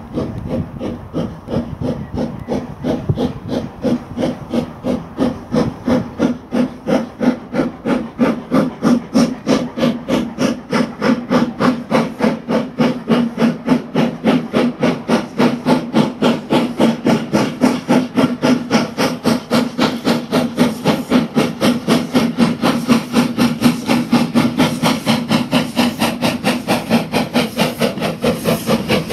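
Exhaust beats of an industrial six-coupled saddle-tank steam locomotive working a passenger train: an even chuff-chuff at about three beats a second, with steam hiss, getting louder over the first several seconds as the engine draws nearer.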